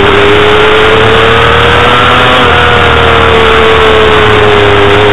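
Honda CBR250RR's 250 cc inline-four engine running hard at high revs, recorded onboard. Its pitch climbs slightly to about two seconds in, eases off a little, then rises again near the end, under a heavy rush of wind noise.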